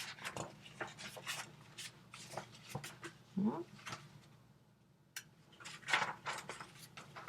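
Quiet, scattered rustling and light tapping from handling, with one short rising pitched sound about three and a half seconds in and a louder cluster of rustles around six seconds in.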